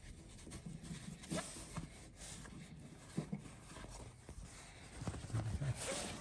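Hands handling rope and a canvas soft-top hood: soft rustling with scattered light clicks as the rope is tied off to a metal rope hook, and a louder rustle of canvas near the end.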